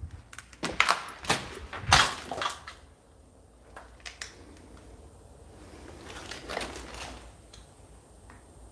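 A string of sharp knocks and clatters in the first three seconds, then a soft, faint rustle around the middle.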